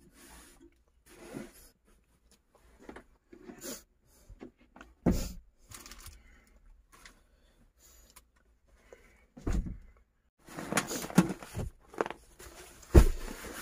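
Intermittent handling noises in a small enclosed space: light rustling and clicks, with dull thumps about five seconds in, near ten seconds, and a louder one near the end.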